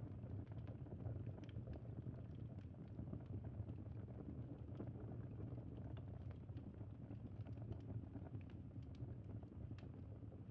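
Crackling wood fire: a steady low rumble with scattered small, sharp crackles and pops at irregular intervals.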